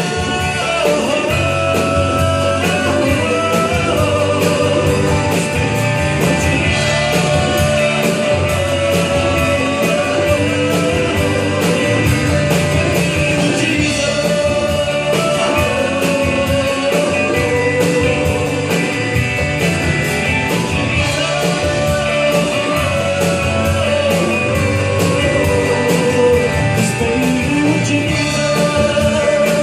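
Live band playing an upbeat rock-style song with a steady beat and a sung melody.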